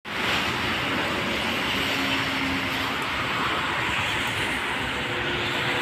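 Hitachi diesel-electric locomotive hauling a freight train, approaching from far off: a faint steady engine drone under a continuous even hiss.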